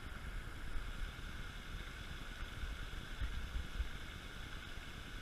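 Steady outdoor background hiss over an uneven low rumble, with no distinct event.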